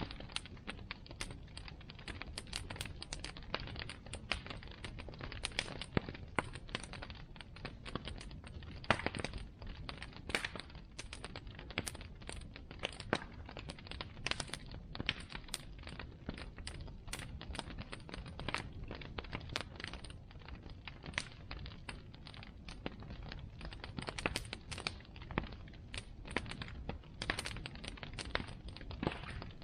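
Bonfire burning with dense, irregular crackling and popping over a low steady rush of flame.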